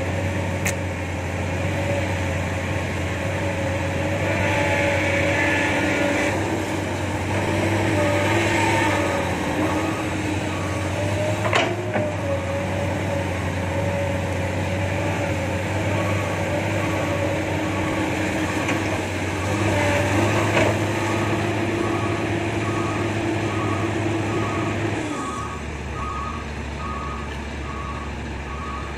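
Hydraulic excavator's diesel engine running under load as it digs and swings, its note rising and falling with the hydraulic work. A reversing alarm starts a steady run of beeps about eight seconds in, there are a few sharp metallic clanks, and the engine note drops a few seconds before the end.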